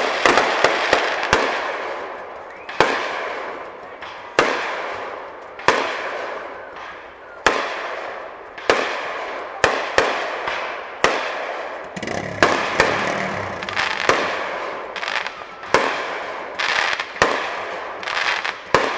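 Aerial fireworks shells bursting in steady succession, a sharp bang about every second, some in quick clusters, each trailing off before the next.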